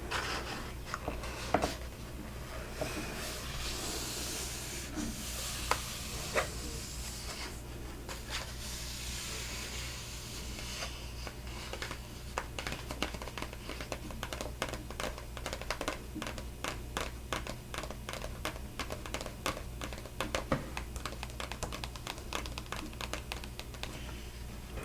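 Hands handling a book's paper pages: soft rustling in the first half, then a long run of quick light clicks and scratches, several a second.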